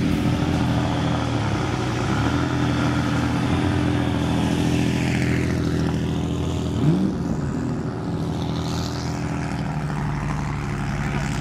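Engines of a 1932 Riley Brooklands racer and a Ford GT-X1 running at low revs as the cars move slowly off, a steady low drone with a short throttle blip about seven seconds in.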